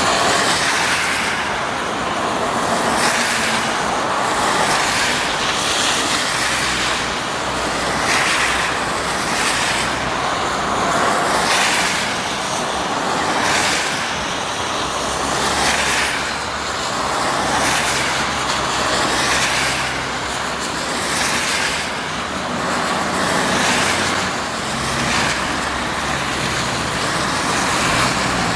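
Motor vehicle driving: a steady low engine hum under a rushing road and wind noise that swells and fades about every one and a half to two seconds.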